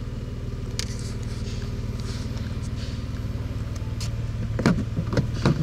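2017 Nissan Maxima's 3.5-litre V6 idling steadily. A few sharp clacks come near the end.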